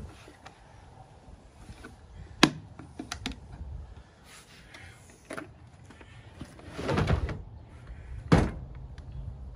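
Vintage portable record player's case being shut and handled: a sharp click of its metal latches about two and a half seconds in, a few lighter clicks, then a thud and a loud knock near the end as the case is lifted by its handle.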